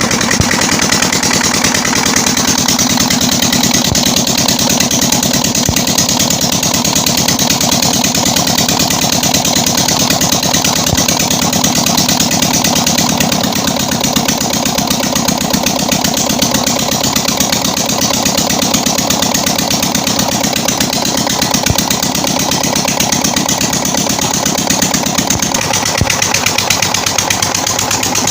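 20 HP Petter-type diesel engine running steadily, a fast, even knocking beat that does not change, with its injector nozzle repaired.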